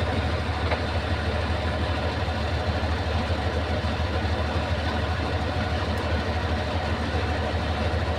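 Bulldozer's diesel engine running at a steady pitch, a low unbroken drone.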